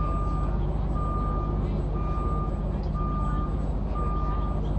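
Vehicle backup alarm beeping, one even half-second beep about every second, five in all, over the steady low drone of a fire engine's diesel running.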